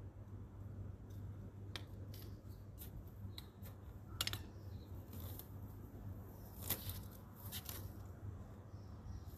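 Hand pruning shears snipping plant stems several times in separate sharp clicks, with rustling of leaves and soil between cuts, over a low steady hum.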